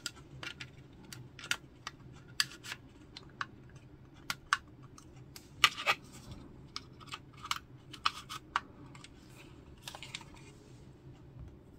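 Injection-moulded plastic parts of a 1/48 Tamiya P-47D Thunderbolt kit being handled and test-fitted together: a scattered run of light, sharp clicks and taps at irregular spacing, a couple louder ones about halfway through.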